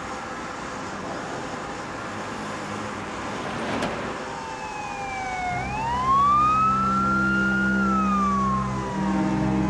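City street traffic noise, joined about four and a half seconds in by an emergency vehicle's siren in a slow wail, its pitch sliding down, rising, holding and falling again. A low steady hum comes in under it as the sound gets louder.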